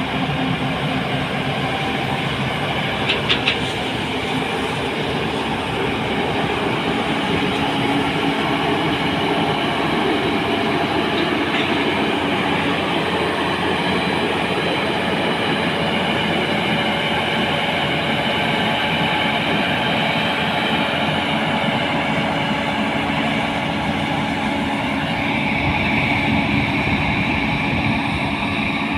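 Heavy diesel construction machinery running steadily with a continuous mechanical rumble and clatter, with a couple of sharp clicks about three seconds in.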